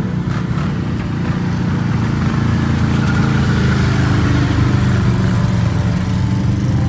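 Off-road vehicle engine running steadily under load, growing a little louder through the middle.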